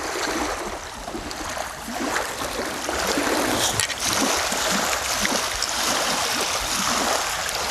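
Wind-driven waves lapping and splashing at a reservoir bank: a steady, uneven wash of water.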